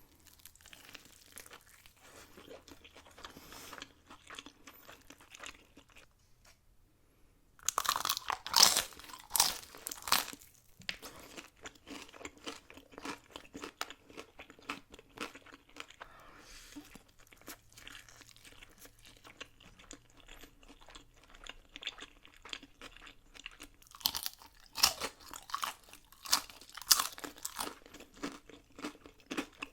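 Close-miked eating: crunchy food being bitten and chewed, with many small crackling crunches. The loudest bites come about eight seconds in and again from about 24 seconds in.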